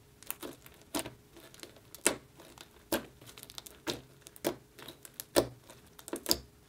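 Fingers poking and pressing a soft pink slime studded with small beads, giving a run of sharp, crackly pops and squelches, about a dozen at an uneven pace.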